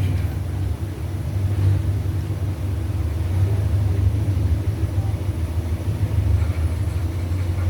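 Steady low engine-like rumble running without a break.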